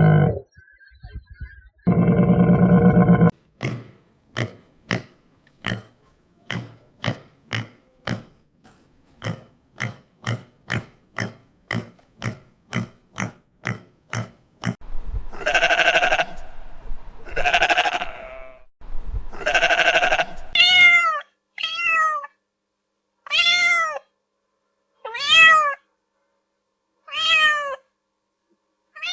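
A sequence of animal calls. First comes one loud call, then a steady string of about two short grunting pulses a second. After that come several drawn-out calls and a run of short, rising-and-falling pitched calls.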